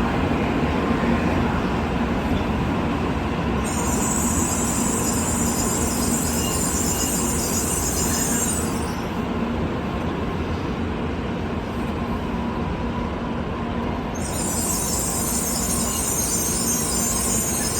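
N700A Shinkansen train running slowly into the platform as it arrives, a steady rumble. A high hissing squeal comes in about four seconds in and lasts around five seconds, then returns near the end.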